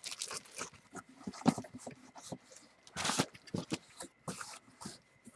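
Clear plastic bag around a jersey crinkling and rustling as it is handled, with scattered small clicks and a louder rustle about three seconds in.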